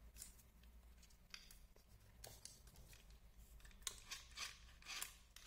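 Faint, scattered clicks and rustles of hands handling the small plastic chassis of a toy RC drift car.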